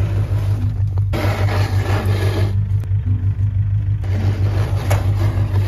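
Snow shovel scraping through snow in three long pushes, over a steady low drone.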